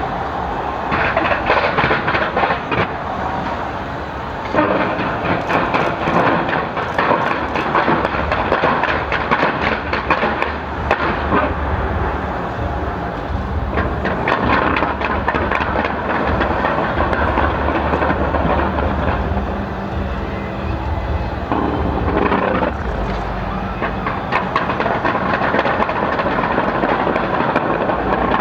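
Fireworks display in a continuous barrage: dense, rapid crackling and popping with bursts packed too close to separate, heaviest around 1 to 3 seconds in and again from about 5 seconds on.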